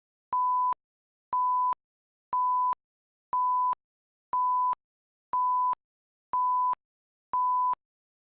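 A steady electronic beep at one fixed mid pitch, about half a second long, repeated once a second eight times, with a click as each beep starts and stops and dead silence between.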